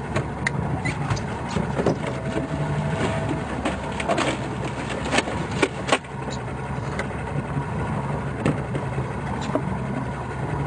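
Boat engine idling with a steady low hum, and scattered sharp knocks and clicks on top, the loudest a few about five to six seconds in.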